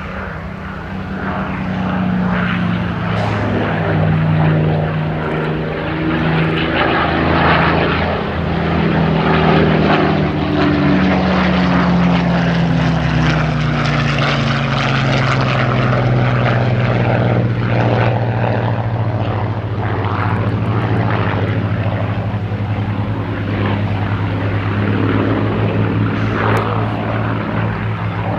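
Propeller-driven fighter's Rolls-Royce Merlin V12 piston engine running at display power on a low pass, a steady throaty drone. It swells in the first couple of seconds, and its pitch slides down through the middle of the pass before levelling off.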